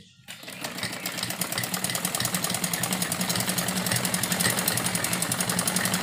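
Black domestic sewing machine running, stitching a seam through layered cloth with a rapid, even clatter. It starts a moment in and builds up over the first second.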